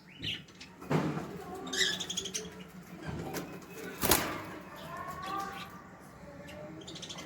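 A mix of caged pigeons and small birds calling: high twittering chirps with lower warbling calls. A few sharp sudden sounds, the loudest about four seconds in.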